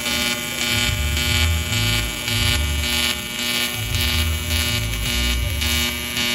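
TIG welding arc on aluminum, buzzing steadily and pulsing about twice a second.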